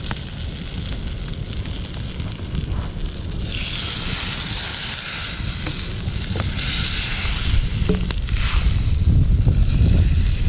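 Wind buffeting the microphone, with a louder hiss that swells about three and a half seconds in and lasts several seconds, and a few faint clicks.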